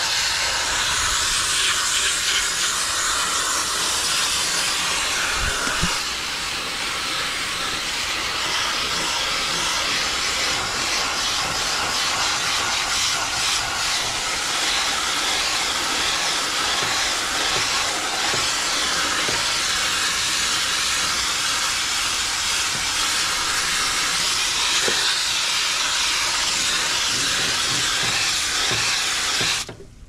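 Garden hose spray nozzle spraying water steadily into an air conditioner's condenser coil, rinsing dirt out of the coil fins. The spray is a continuous loud hiss that cuts off suddenly near the end.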